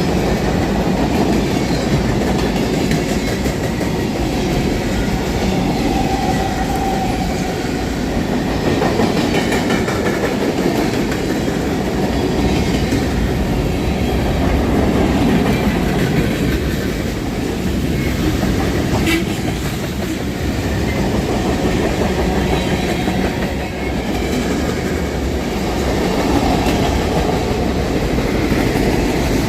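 A CSX manifest freight train rolling past close by: a steady rumble of freight cars and wheels on the rails, with no horn.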